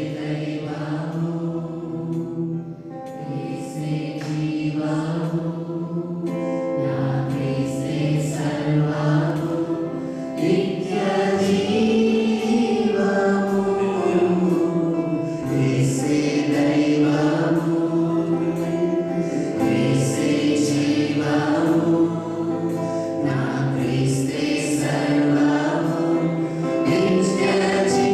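A group of voices singing a gospel worship song together, continuously, with sustained notes moving up and down.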